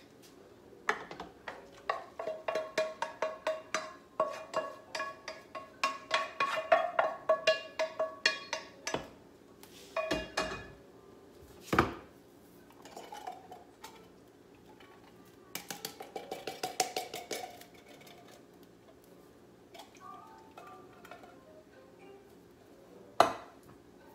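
Wooden spatula knocking and scraping inside a nonstick frying pan to empty it into a slow cooker: a quick run of taps, several a second, with the pan ringing, then a few heavier knocks. A second, shorter run of clinks comes later, as a can is emptied into the crock.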